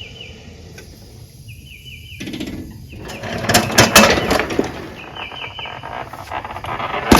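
Clattering and rustling handling noise full of small clicks, loudest in the middle, with one sharp click near the end. A bird chirps in short repeated phrases over it.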